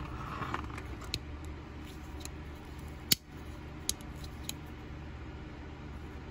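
Buck Spitfire folding knife being opened and closed by hand to test its freshly reassembled lock: a handful of light metallic clicks, the loudest a sharp snap about three seconds in as the blade locks or releases.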